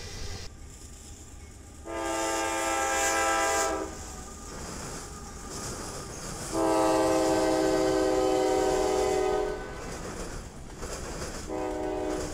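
CSX freight locomotive's multi-chime air horn sounding two long blasts and then a short one, the start of the standard grade-crossing signal, while the train's wheels rumble over the rails.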